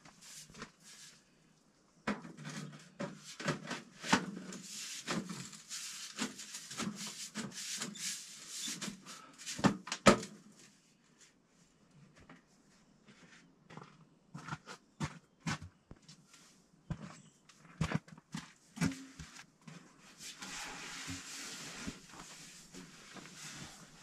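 Sheet-metal wood-stove pipe sections being handled for cleaning and refitted: irregular clanks and knocks with stretches of scraping, with a short lull near the middle.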